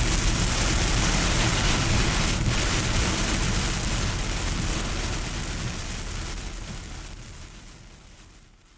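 Heavy rain falling steadily over a low rumble, fading out over the last few seconds.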